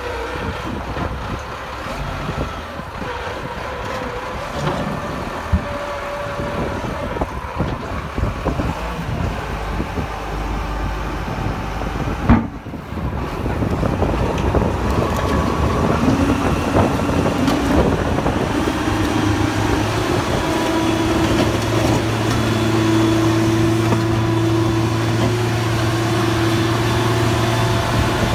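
Diesel engine of a Texoma 900T crawler rotary drill running as the auger bores into rocky ground. After a short break about twelve seconds in, it settles into a louder, steady hum.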